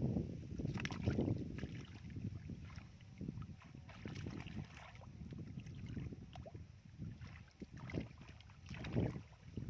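Shallow muddy water sloshing and splashing in irregular surges, with small splats and clicks, as hands work through mud and water.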